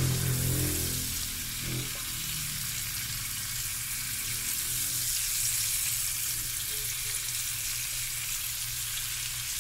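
Bacon strips sizzling steadily in a frying pan, cooking in their own rendered fat with no oil added.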